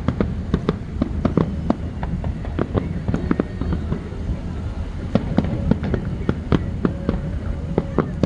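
Aerial fireworks bursting in quick, irregular succession: several sharp bangs a second over a continuous low rumble.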